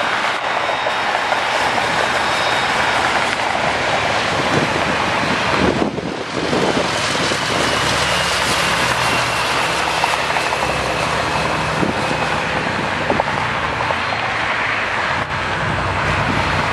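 Boeing 777 twin jet engines at takeoff power: a loud, steady roar with a high fan whine over it that slowly falls in pitch, with a brief dip about six seconds in.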